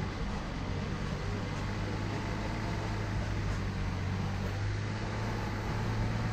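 Car engine running steadily, a constant low drone.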